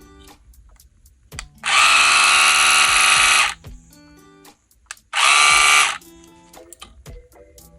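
Small electric motor of a split-end hair trimmer switched on and buzzing twice, first for about two seconds, then again for under a second, over light background music.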